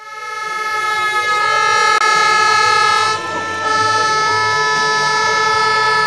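A fan's air horn sounding one long, steady note over crowd shouting.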